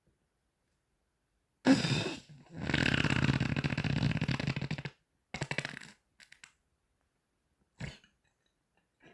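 Farting: a short loud blast, then a long fluttering fart lasting a couple of seconds, followed by three shorter ones.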